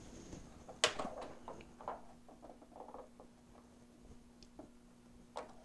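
Small metal clicks and light handling noises from a 1973 Gottlieb High Hand pinball machine's flipper assembly as the flipper bat is worked back onto its shaft and crank: one sharp click about a second in, softer clicks through the middle, another click near the end, over a faint steady hum.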